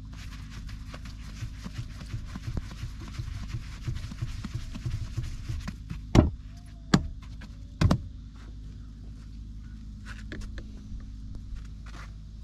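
Hands working bread dough in a floured clay dish, with soft pats and squishes as a ball of dough is pulled off and shaped. Midway there are three sharp knocks, a little under a second apart, over a steady low hum.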